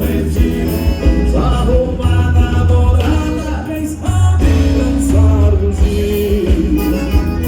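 Live gaúcho dance band playing between sung lines: accordion melody over bass and drums with a steady dance beat.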